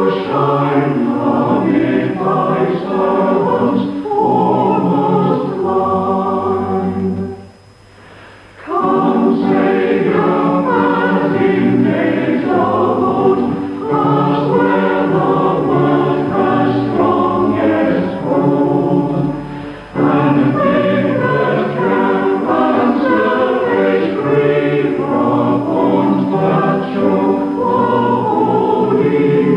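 Choir and congregation singing a hymn in sustained chords, with a short break between lines about eight seconds in. Recorded off a radio broadcast onto cassette.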